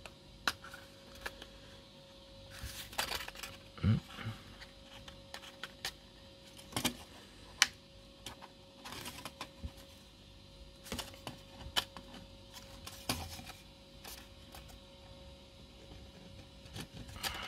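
Thin laser-cut wooden plates handled and pressed together: irregular clicks, taps and short scrapes as friction-fit tabs are pushed into their slots.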